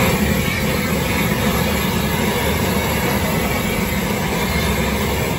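Handheld gas torch blasting a flame onto pieces of meat in a metal tray: a loud, steady roar that stops abruptly at the end.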